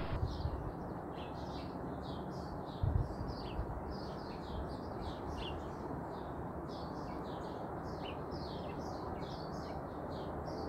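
Small birds chirping over and over against a steady background hiss, with a single low thump about three seconds in.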